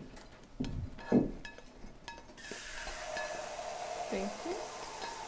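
Metal utensil knocking and scraping against a skillet as browned meat is scraped into a crock pot, with sharp clinks and one louder knock about a second in. From about two and a half seconds in, a kitchen tap runs steadily into the sink.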